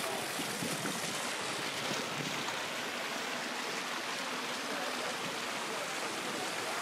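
Small fountain jets splashing steadily into a shallow pool.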